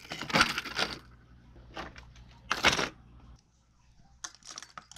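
Hard plastic crankbaits and topwater lures with metal treble hooks clattering as they are dropped into a clear plastic tackle box. A dense rattle in the first second gives way to a few separate clacks, one louder about two and a half seconds in.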